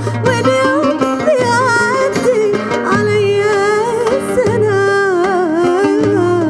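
Arabic song in an instrumental passage: a winding, ornamented melody line over a pulsing bass beat.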